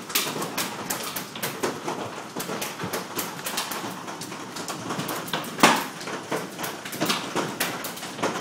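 Large hailstones, about baseball size, pelting the house in a dense, irregular barrage of hard knocks, with one louder strike a little past halfway.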